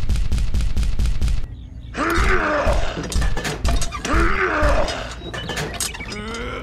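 A small tractor engine chugging in a fast, even clatter of about six or seven beats a second, cutting off about a second and a half in. Then two loud growling groans, each about a second long, with a pitch that dips and rises.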